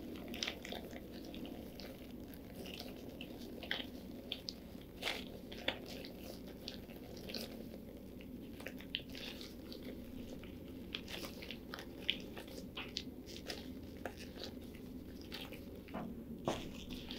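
Black tissue paper and gloved fingers being worked around a glue-coated foil-and-wire body. Scattered soft crinkles and sticky little clicks come at irregular moments over a faint steady hum.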